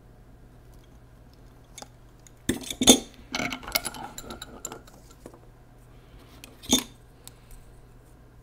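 Metal hand tools clanking and clinking against a metal drill press vise as the pliers are put down and a steel ruler is laid across the jaws. A few sharp clanks come about two and a half seconds in, the loudest near three seconds, followed by a rattle of smaller clinks and one more clank near the end.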